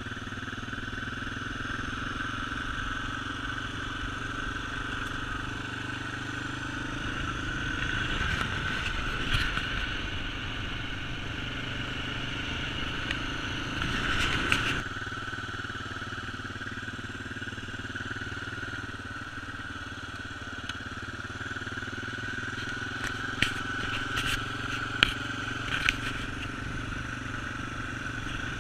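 Adventure motorcycle engine running steadily, with a few sharp clicks and rattles near the end.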